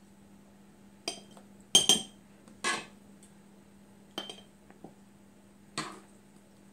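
Metal spoons clinking and scraping against a glass jar and a frying pan while sautéed green beans are spooned into the jar: about six or seven separate clinks, the loudest around two seconds in.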